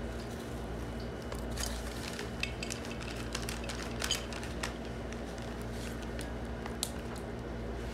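Scattered light metal clicks and taps from a treadmill drive motor and its flywheel being handled and worked on by hand, over a steady low hum.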